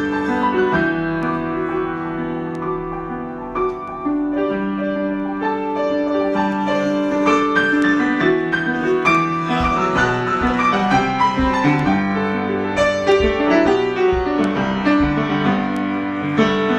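Solo piano improvisation: sustained chords in the lower middle register under a melody of shorter notes, with the notes coming more busily from about six seconds in.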